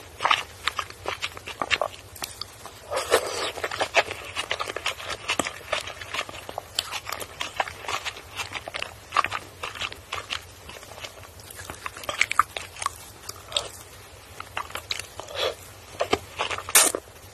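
Close-miked chewing and biting of soft ice cream mochi: many short, irregular mouth clicks, with a sharper bite into a piece about a second before the end.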